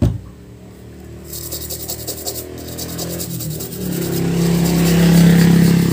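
A toothbrush scrubbing the wet solder side of a CRT TV's neck (socket) board to clean it, a fast run of bristle strokes that grows louder. It opens with a knock.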